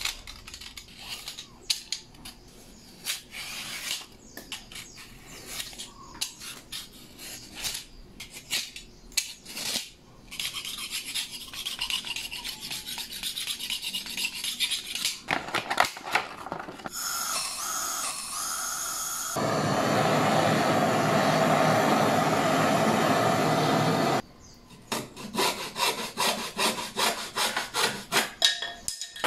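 A utility-knife blade scraping leftover PVC foam board off a wooden strip in short, irregular strokes. About three quarters of the way through a loud, steady rushing noise runs for about five seconds and cuts off abruptly. After it, a small hand wire saw cuts through a wooden piece in steady back-and-forth strokes.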